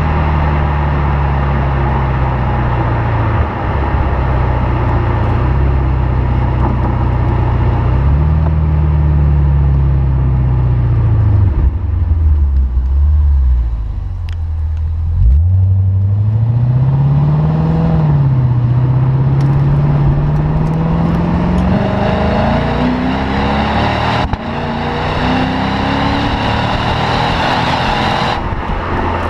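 2016 Lexus RC F's 5.0-litre V8 exhaust on the move. The engine pitch sags and rises with the throttle, drops low briefly about halfway through, then climbs steadily and steps up through the gears near the end.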